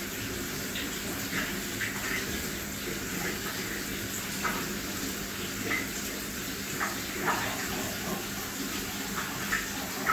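Aquarium water circulating: a steady trickling and bubbling, typical of a tank filter's return flow, with small splashes throughout and a low steady hum underneath.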